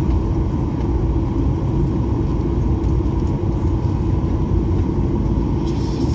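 Boeing 737-800 airliner running with a steady low rumble and a constant hum.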